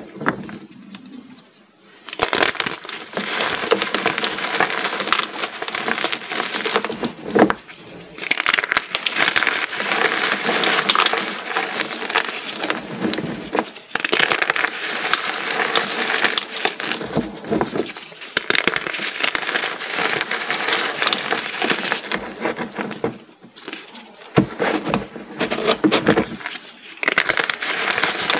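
Small reformed gym-chalk pyramids being crushed en masse: a dense crunching crackle of many tiny snaps. It starts about two seconds in and goes on in long spells with a few short pauses.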